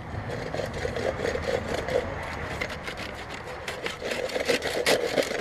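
Hand saw cutting through a bamboo pole, rasping back-and-forth strokes that quicken about halfway through.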